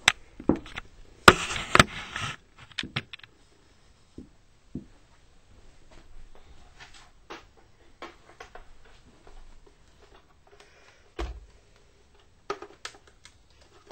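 Handling noise: a cluster of clicks, knocks and rustling in the first two seconds as the camera is moved and set down, then scattered faint clicks, a dull thud about eleven seconds in, and a few more clicks near the end.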